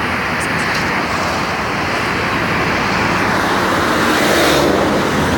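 Road traffic noise: vehicle engines and tyres running steadily, swelling a little about four seconds in as a vehicle passes close.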